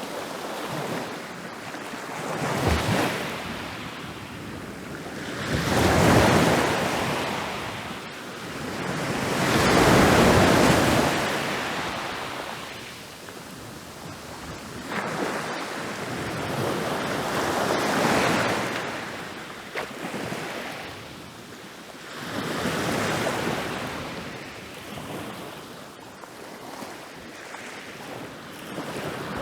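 Ocean waves breaking on a beach: a steady rushing wash of surf that swells with each wave and falls back between them. The largest waves break about 6 and 10 seconds in, and others follow about every four to eight seconds.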